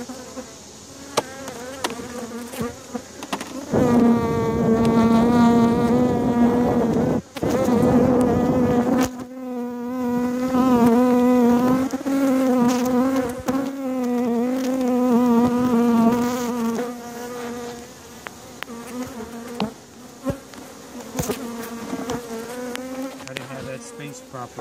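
Honeybees buzzing in a mass around an opened hive: a steady low hum that swells loud about four seconds in and eases back after about seventeen seconds. Scattered clicks and knocks are heard throughout.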